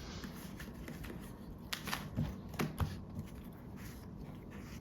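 Photocards being handled: light rustling with a few soft clicks in quick succession, about two seconds in.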